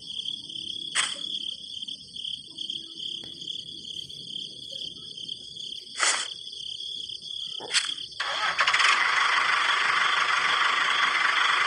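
A few light knocks as small toy pieces are set down, over a steady high chirring like crickets; about eight seconds in, a steady motor running noise starts and keeps on, louder than everything before it.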